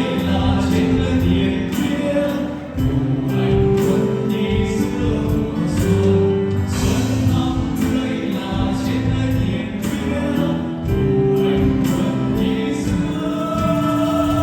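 Music with a group singing in chorus over a steady beat.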